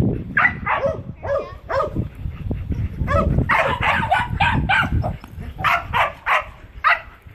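Dogs barking repeatedly in short bursts, with the densest flurry of barks about three to four seconds in and another near the end.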